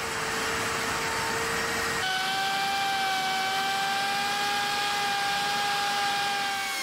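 Festool plunge router running steadily as it cuts a dado groove through plywood along a guide rail. Its steady whine jumps to a higher pitch about two seconds in.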